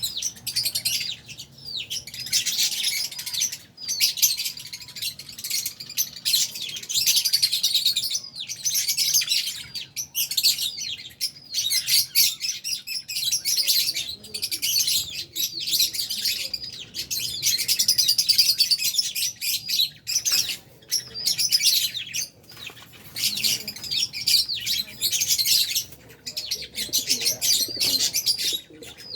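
A colony of lovebirds, Fisher's lovebirds among them, chirping continuously in many high, overlapping calls, with only brief lulls.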